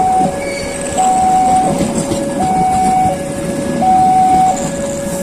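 Railway level-crossing warning alarm sounding a steady high-low two-tone signal, switching pitch about every 0.8 s, over the rumble of a passenger train's carriages rolling slowly past on the rails as the train draws in to stop.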